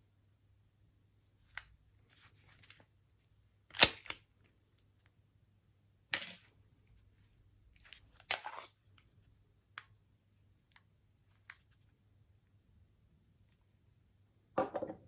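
Replica Glock 17 pistol being handled: a string of separate mechanical clicks and clacks, the sharpest and loudest about four seconds in, with a short rattling clack near the end.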